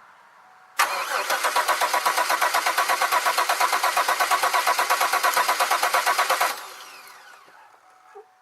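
2002 Chevy Malibu engine cranking over on its newly installed starter motor, in a fast even pulsing of about seven beats a second, starting suddenly about a second in and stopping after about five and a half seconds without the engine catching. The owner puts the no-start down to having no fuel.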